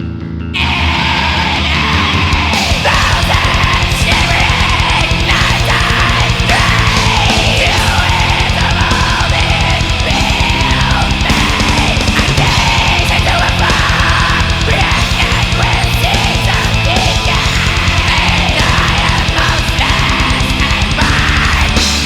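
Black/death metal music: after a bass-guitar passage, the full band comes in about half a second in, with heavily distorted guitars and fast drumming.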